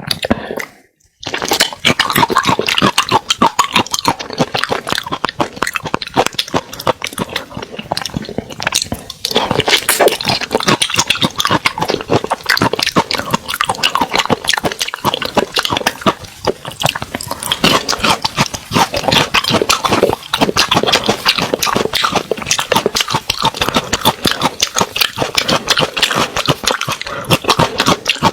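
Close-miked wet chewing and slurping of saucy seafood, a dense run of smacking, squelching mouth clicks. A brief pause comes about a second in, and then it runs on without a break.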